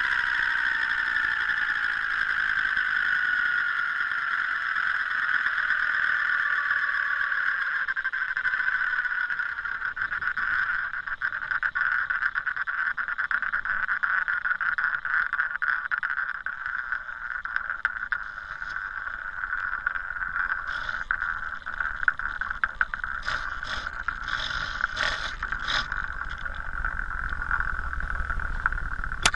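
Helicopter whine heard from a camera mounted on the rotor: a high tone falls in pitch over the first several seconds, then holds steady with a fast flutter, and a few sharp clicks come near the end.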